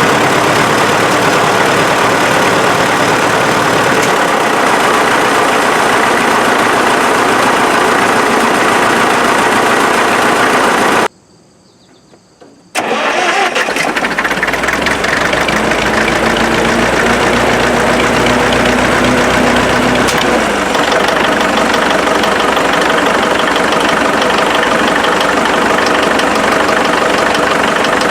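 Farmall four-cylinder diesel tractor engine running steadily, loud. The sound drops away for about two seconds near the middle, then the engine is heard again. The tractor's sheet metal and emblems vibrate and buzz along with the engine.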